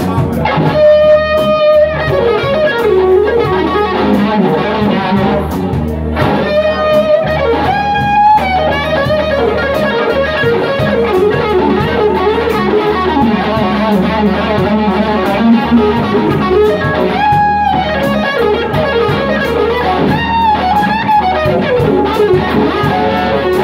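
Live band: a lead electric guitar plays several long held notes, some bent up and wavering, over bass guitar and drums.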